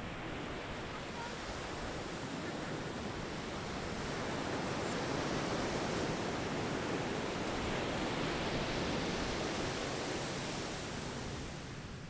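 Ocean surf breaking on a sandy beach: a steady rushing wash that swells through the middle and eases near the end.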